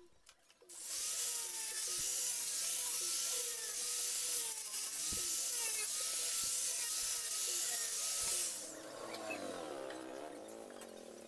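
Angle grinder fitted with a sanding disc running steadily against plywood, a loud hissing grind. It is switched off about eight and a half seconds in and winds down over the next couple of seconds.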